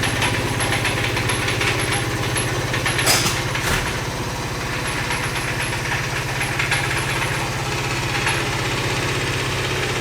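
A motor running steadily with a low hum, with a few light clicks and knocks over it.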